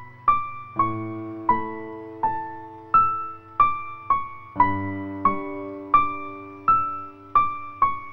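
Background piano music: a slow, gentle melody of single struck notes, about three every two seconds, each fading away, over held low chords.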